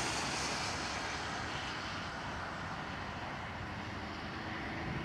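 Jet aircraft engine noise, a steady wide roar that slowly fades and then cuts off suddenly at the very end.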